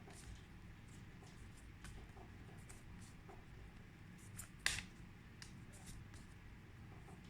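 Faint handling of paper flashcards being shuffled into a pack: soft rustles and light taps, with one sharper tap about two-thirds of the way through.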